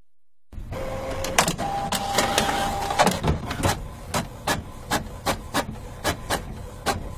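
Inkjet printer at work, starting about half a second in: its motors whir with a couple of held tones, then the mechanism clatters in a regular rhythm of about three clicks a second.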